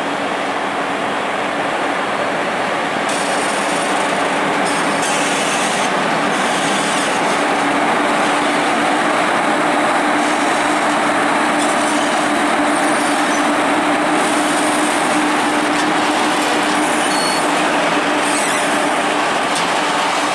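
PKP Cargo ET22 electric freight locomotive hauling a train of open coal wagons past at close range: the steady rumble of wheels on rail, with a hum at one pitch that grows stronger after about 8 seconds and short high wheel squeals.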